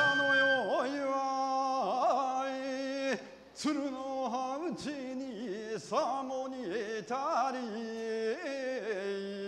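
A single voice singing a slow Bingo kagura song, holding long, drawn-out notes that bend and waver in pitch, with a brief break between phrases about three seconds in. A held instrumental note from the music before it dies away right at the start.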